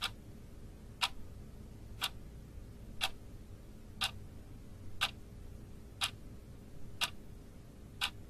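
Old observatory clock, once used to keep the national official time, ticking steadily once a second.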